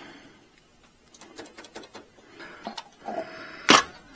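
Irregular small clicks and taps of metal parts and hand tools during work on an engine's carburetor and throttle linkage, with one sharper click near the end.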